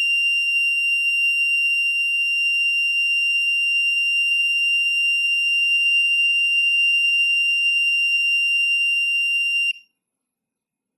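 Piezo buzzer of a 555-timer vibration alarm sounding one steady, high-pitched tone, set off by the piezo sensor detecting vibration. The tone cuts off suddenly near the end.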